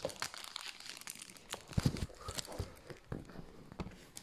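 Packaging being handled by hand while a parcel is opened: irregular crinkling and rustling with scattered small knocks and crackles.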